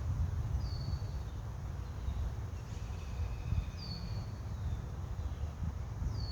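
A bird giving a short, high, falling call three times, about every three seconds, over a steady low rumble.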